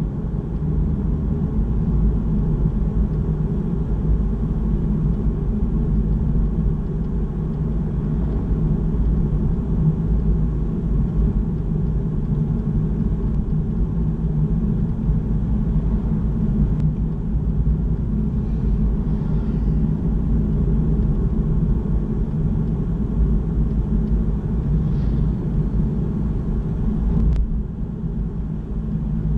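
Steady low rumble of engine and road noise inside a moving car's cabin, easing slightly near the end.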